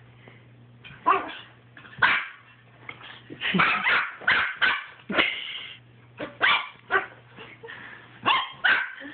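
Small puppy barking: sharp, high-pitched barks, about a dozen in irregular bursts starting about a second in. The pup is barking in alarm at a person wearing an Easter Bunny mask.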